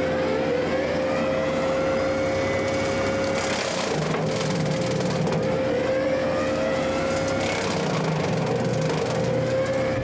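Skid steer running a direct-drive hydraulic brush mower (Eaton 4000-series motor) while it cuts into buckthorn bushes: a steady high whine from the spinning blades over the diesel engine, with the pitch climbing several times as the machine works into the wood.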